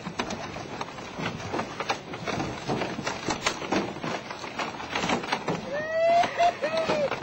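Fish leaping out of the water around a small boat: a rapid, irregular scatter of splashes and knocks against the hull over the noise of the water. A short wordless cry that wavers in pitch comes about six seconds in.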